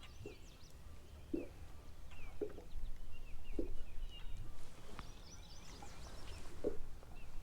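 Birds chirping faintly over a steady low outdoor rumble, with soft short knocks about once a second.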